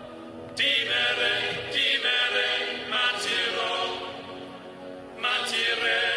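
Background music with sung vocals.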